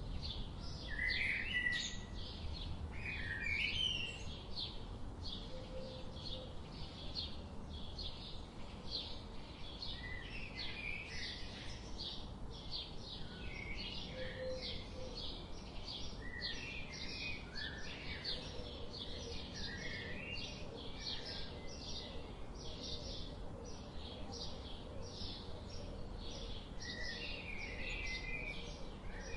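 Several birds chirping: a steady run of short high chirps, two or three a second, over irregular lower warbling calls, with a low background rumble underneath.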